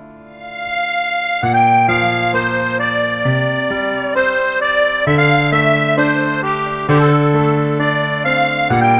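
Instrumental background music led by an accordion-like reed sound playing held chords and a melody over bass notes. It starts softly after a fading piano phrase and fills out about a second and a half in.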